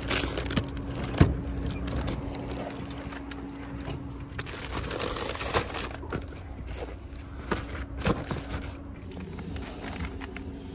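Handling sounds of a paper takeout bag being carried and set down, with a sharp knock about a second in and a few lighter knocks later, over a steady low hum that fades out near the end.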